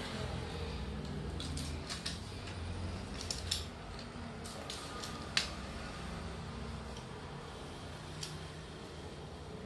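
Scattered light clicks and taps of small toys being handled, about eight in all with the sharpest about five seconds in, over a low steady hum.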